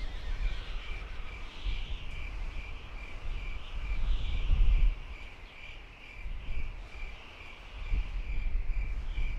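Outdoor nature ambience: an insect, cricket-like, chirping in an even pulse at about two chirps a second, over a low rumble that swells about four seconds in and again near the end.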